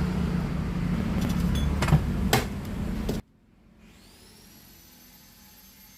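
Loud, steady workshop machine noise with a couple of sharp knocks, cut off abruptly about three seconds in. A faint high motor whine follows, rising in pitch and then holding steady.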